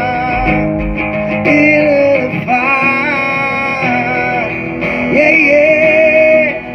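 Live acoustic guitar playing with a voice singing long, wavering held notes without clear words.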